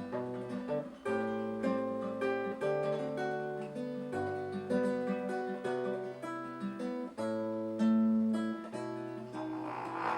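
Acoustic guitar playing alone: an instrumental passage between sung verses of a bard song, plucked chords over a bass note that changes about every second.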